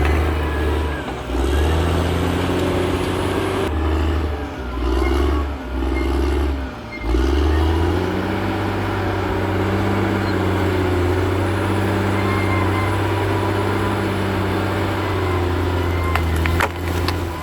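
Caterpillar D6R XL bulldozer's diesel engine working under changing load, its note dropping and picking up again several times over the first seven seconds, then running steadily. A few sharp clanks near the end.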